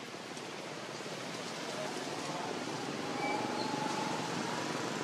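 Steady outdoor background hiss. About three seconds in, a faint thin drawn-out call or whistle sits above it.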